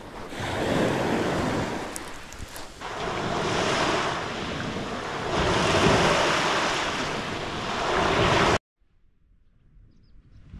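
Sea waves surging onto the shore in swells a few seconds apart, with wind buffeting the microphone; the sound cuts off abruptly near the end.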